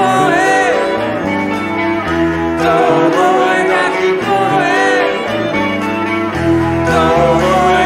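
Rock band playing live: electric guitars over bass and drums, with a lead line that bends and wavers in pitch.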